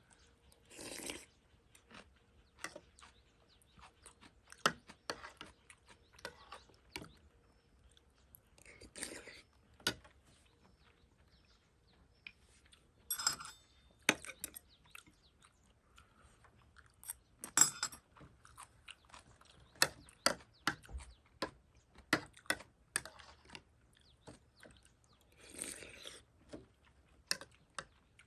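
Close-up eating of instant ramen: chewing with many small clicks, and about five longer noisy sounds spread through.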